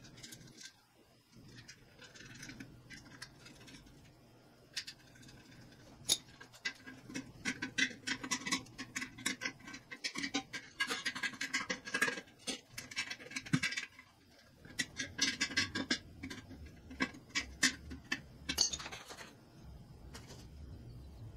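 Wrench tightening the fastener that holds a pedestal shop fan's pole to its steel base plate: scattered clinks and scrapes, then two long runs of rapid metallic clicking, the second stopping shortly before the end.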